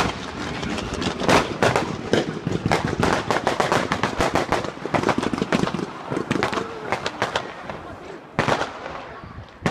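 Aerial fireworks going off: a dense, rapid run of crackling pops and bangs that thins out and quietens near the end.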